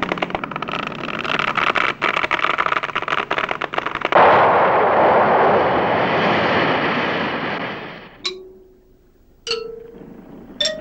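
Cartoon sound effects of a wooden ship's mizzenmast and rigging collapsing. About four seconds of cracking and creaking, then a loud crash that dies away over the next four seconds, then three short knocks, each a little higher in pitch than the one before.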